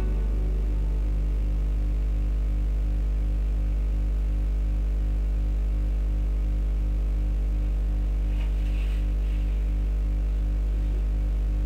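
Steady, loud electrical hum with a low buzzing pulse in its overtones and faint static hiss, like mains hum on the audio track; the last notes of music die away in the first second.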